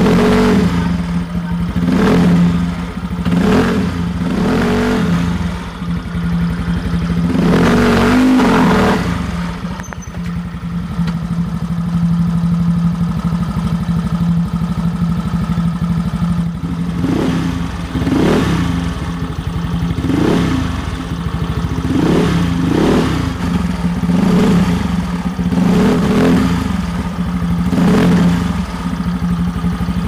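Yamaha Mio Fino scooter's single-cylinder four-stroke engine, with a 54 mm big-bore block and an MT8 aftermarket exhaust, idling between short throttle blips. Several quick revs come in the first few seconds and one longer rev about eight seconds in, then it idles steadily before about nine quick blips in the second half.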